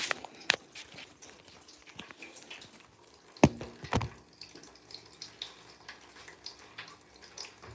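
Handling noise: a knock as the phone is set down, then scattered light clicks and taps, with two sharper knocks about three and a half and four seconds in.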